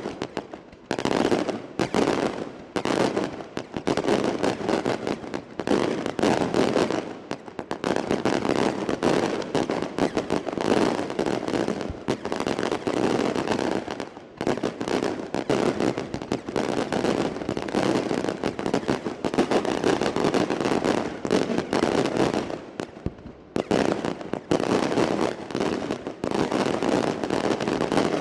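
Maltese daylight fireworks battery: rapid, dense volleys of bangs and crackling reports from shells bursting overhead, with a few brief lulls.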